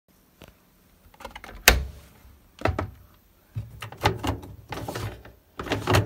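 Candy Smart Touch tumble dryer door clicking open with a sharp knock, followed by several plastic knocks and rattles as the door and lint filter are handled.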